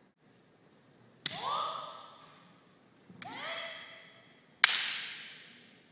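Practice strikes in naginata: three sharp cracks of the weapon landing, about a second in, around three seconds and near the end. The first two come with high-pitched kiai shouts that rise in pitch as they start.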